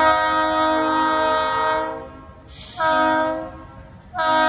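Diesel locomotive's multi-chime air horn sounding for a grade crossing: a long blast of about two seconds, a short blast a second later, then another long blast starting near the end, the long-short-long of the crossing signal.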